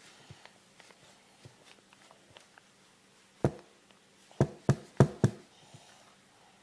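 A pear being eaten: faint clicks of biting and chewing, then one sharp knock about three and a half seconds in and four quick knocks about a second later, the loudest sounds here.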